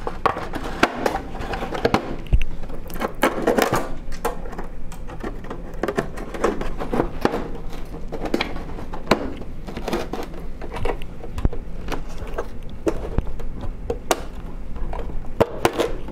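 Fiberglass tip fairing being worked onto an aluminium horizontal stabilizer: irregular scraping and rubbing with many sharp knocks and clicks of fiberglass against sheet metal.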